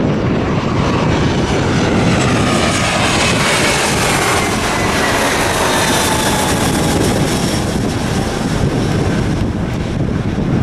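Airbus A320-family twin-engine jet airliner passing low overhead on final approach with its landing gear down. Its jet engines make a loud steady roar, with whining tones that fall in pitch as it goes by, about four to seven seconds in.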